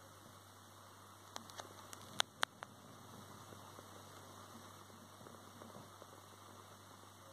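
Faint steady hum and hiss of the phone's microphone, broken by a short run of sharp clicks about a second and a half to two and a half seconds in, the two loudest close together: handling noise as the phone is moved.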